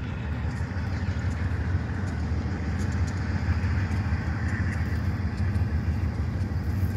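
Union Pacific double-stack container train approaching with its diesel locomotives leading: a steady low rumble.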